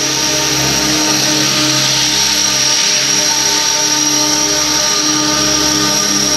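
Radio-controlled model helicopter, an Align T-Rex 600 in an Airwolf scale body, in flight: a steady, constant high whine over a continuous running noise.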